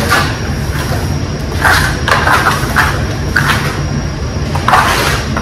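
Steel plastering trowel scraping across a wet base coat of plaster on a wall in several short strokes, over a steady low hum.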